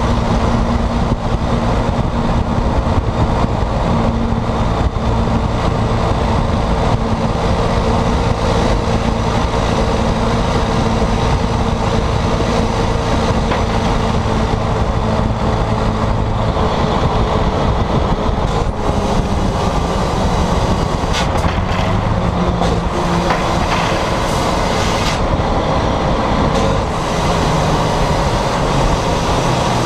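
Volvo FMX 460's 13-litre straight-six diesel heard through a broken, straight-through exhaust as the truck drives: a loud, continuous drone whose pitch shifts now and then with engine speed.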